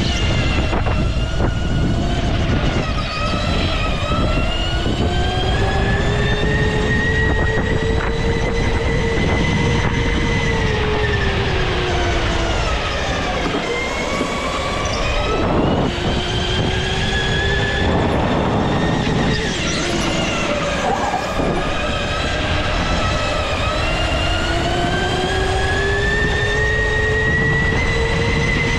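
Go-kart's motor heard from on board: a whining tone that climbs in pitch over several seconds as the kart speeds up, then drops back as it slows, several times over, over a constant low rumble of vibration and road noise.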